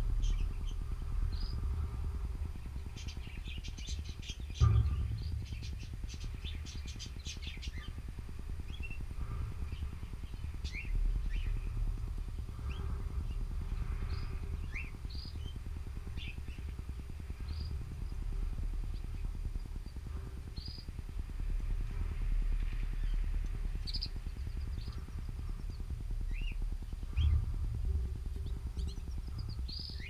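Canaries giving short chirping calls scattered throughout, with a quick flurry of chirps in the first few seconds, over a steady low rumble. A sharp thump about four and a half seconds in is the loudest sound, with a smaller one near the end.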